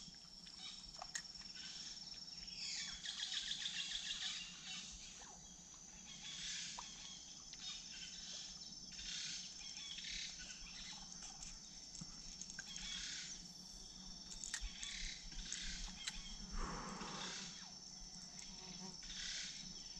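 Rainforest insect chorus: a steady high-pitched buzz throughout, with shorter chirring calls coming and going over it. A brief rushing noise comes about 17 seconds in.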